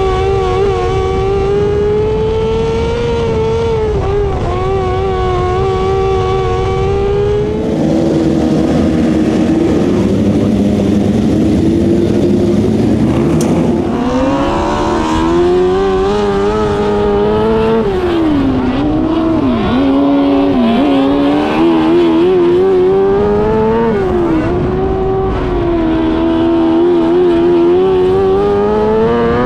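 600cc micro sprint engine running hard at high revs in a dirt-track race. The pitch rises and falls as the throttle opens and lifts, with deeper dips as it goes into the turns.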